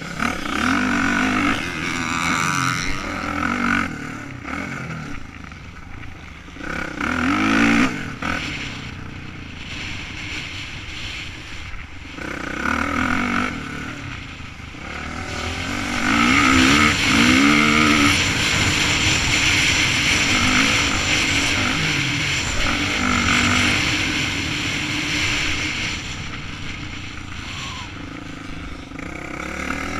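Motocross bike's engine heard from on board, revving up and down again and again as the rider accelerates and shifts through the corners, over a loud rush of air and dirt noise. It runs loudest through the middle of the stretch.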